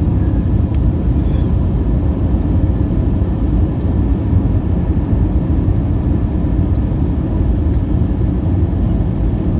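Steady low rumble of an Airbus A319's engines and airflow heard inside the cabin from a window seat over the wing, during the descent on approach. A few faint steady high tones sit above the rumble.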